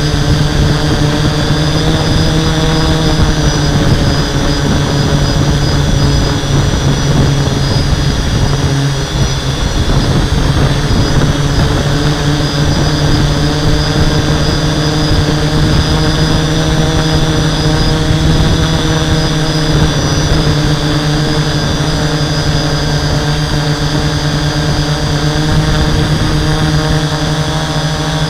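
Six brushless motors and 11x5.5 propellers of a HobbyKing 650X6 hexacopter in flight, heard up close from its onboard camera: a loud, steady hum of several tones over a rushing noise, with a brief dip about nine seconds in.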